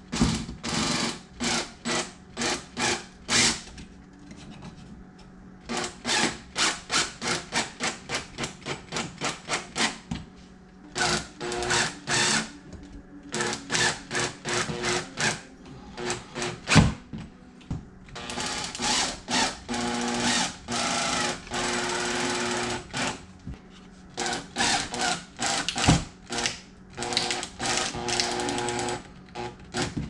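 Cordless drill/driver driving screws into wood, running steadily for a few seconds at a time, between stretches of quick repeated strokes about four a second.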